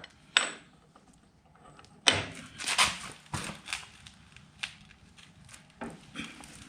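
A series of irregular knocks and clatters, the loudest cluster about two to three seconds in.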